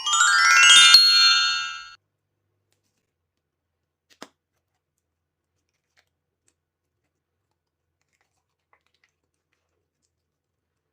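A quick upward run of bright, ringing chime-like notes, a cartoon-style sound effect lasting about two seconds. A single faint click about four seconds in.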